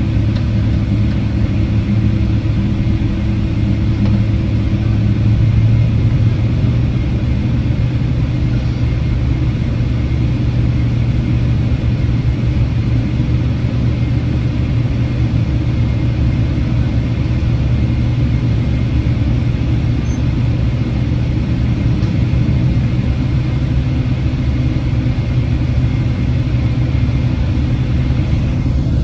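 Steady cabin drone of a Boeing 777-300ER's GE90-115B engines running at low thrust, a constant low hum, heard from inside the passenger cabin.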